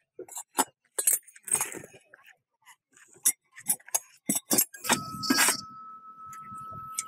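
Quick, irregular clinks and knocks of broken brick and stones striking a galvanized sheet-steel trough. About five seconds in, a steady hum with a thin high whine starts underneath.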